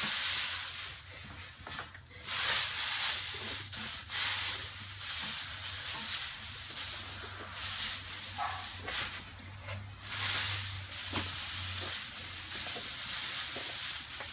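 Water spraying from a garden hose, a steady hiss that swells and fades every second or two as the spray sweeps about.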